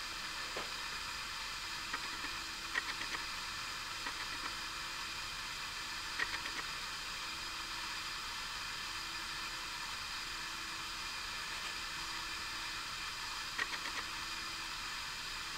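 Steady hiss of the recording's background noise, with a faint on-and-off hum and a few soft clicks around three, six and fourteen seconds in.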